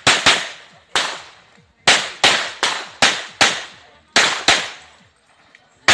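Handgun fired rapidly in a practical-shooting course of fire: about ten sharp shots in pairs and quick strings, each with a short echoing tail. A pause of about a second comes near the end.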